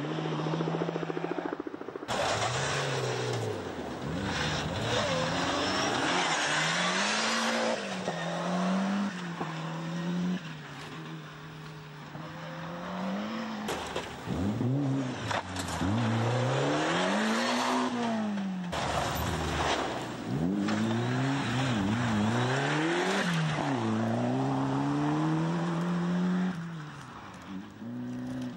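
Rally cars driven flat out, the engine note climbing and then dropping again and again through gear changes and lifts of the throttle, with a loud rushing noise as they pass at speed.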